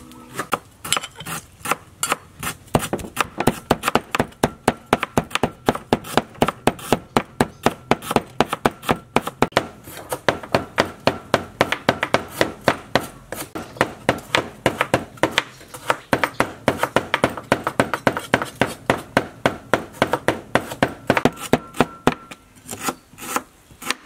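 A cleaver chopping rapidly on a wooden chopping board, mincing a fish-paste mixture, with even strikes about four a second.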